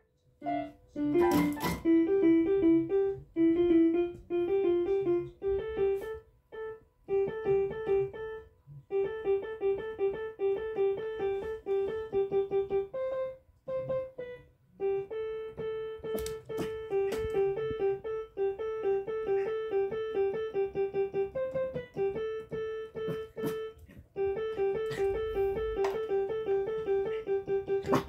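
An old Yamaha portable electronic keyboard played with a piano-like voice: quick strings of short single notes, mostly two or three neighbouring notes repeated over and over, with brief pauses between phrases. A loud knock comes about a second and a half in.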